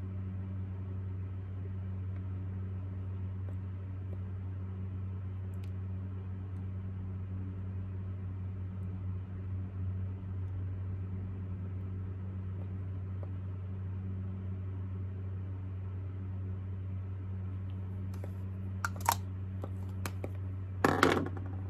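Steady low room hum with no speech, broken by a couple of short clicks near the end.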